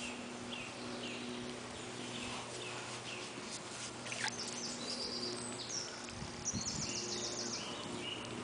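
Songbirds chirping, with a fast high trill a little past the middle, over the steady rush of a shallow stream and a faint low hum.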